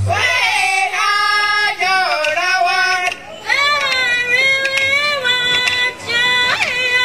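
A hand drum song sung without drum beats by high female and children's voices together, in phrases of held and sliding notes. The phrases break briefly about three seconds in and again about six seconds in.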